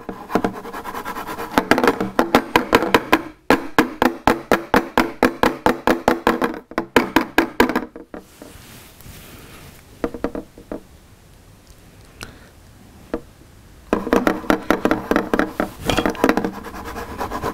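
A baking dish of marshmallow mixture rattled and knocked rapidly against the countertop to settle the mixture and drive out air bubbles. It comes in two bouts of quick repeated knocks with a ringing tone from the dish, separated by a few quieter seconds with only the odd click.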